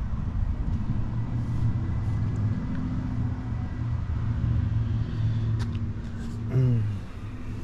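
Engine of a 1972 Ford F250 idling with a steady low rumble. A short sound sliding down in pitch breaks in near the end.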